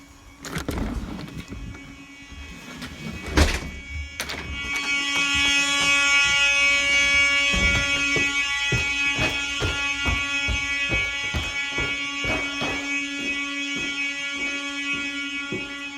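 Fire alarm horn strobes sounding a continuous buzzing horn during a panel-initiated fire drill. The horn is faint at first, then loud after a knock about three and a half seconds in, with scattered knocks and steps over it.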